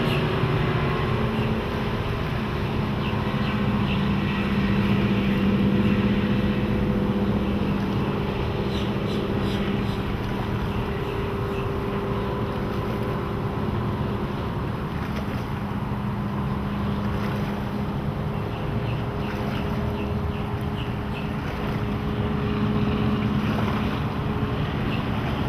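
Twin Evinrude 225 hp Ram Injection V6 two-stroke outboards running steadily with the boat underway, a steady engine drone under the rush of water and wind on the microphone.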